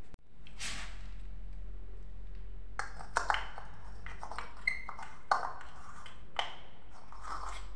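Chrome shower-mixer wall flange clinking against its threaded pipe fitting as it is fitted by hand: a handful of sharp metallic taps and pings, a few ringing briefly, between about three and six and a half seconds in.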